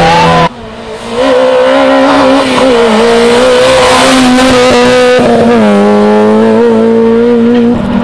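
Small rally car engines revving hard at high, near-steady revs as the cars pass. The sound cuts abruptly about half a second in, and the pitch dips briefly around five seconds in.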